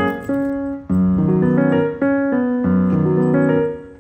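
Background music: piano chords struck about once a second, each ringing and fading, with a brief drop near the end.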